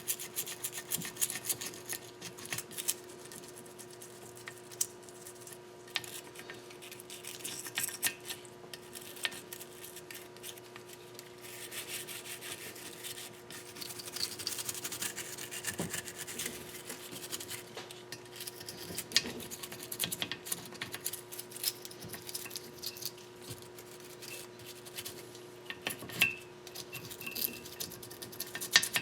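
Hand scraping and rubbing on a metal gasket surface of a Nissan KA24DE engine, cleaning off old gasket residue, irregular strokes with small clicks and clinks of the tool. A faint steady hum runs underneath.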